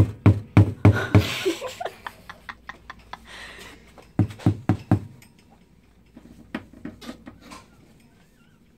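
Galah cockatoo pecking and chewing at a cardboard box: irregular knocks and taps on the cardboard in clusters, with a short scratchy sound about a second in and again just past three seconds, the knocks thinning out toward the end.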